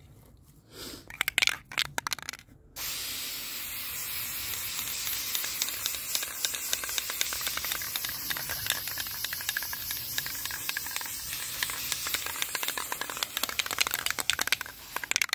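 Aerosol can of black spray paint hissing in one continuous spray, applying a light first coat to a plastic toy limo. The spray starts suddenly about three seconds in and runs for about twelve seconds, with a few short rustles and clicks before it.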